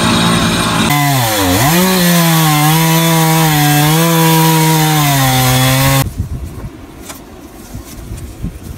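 Stihl chainsaw in a chainsaw mill, ripping lengthwise through a log. About a second in, the cutting noise drops away and the engine note dips, then settles into a steady run. About six seconds in it stops.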